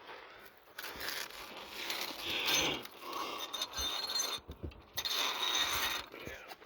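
Hand tools being gathered and dragged out from under a truck: stretches of scraping and rustling with a few knocks and light metallic clinks.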